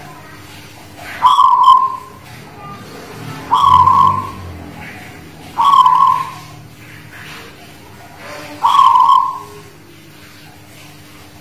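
Caged zebra dove (perkutut) of the local Guling Muria type singing: four separate cooing phrases, each opening with a quick high note and settling into a held coo, repeated every two to three seconds.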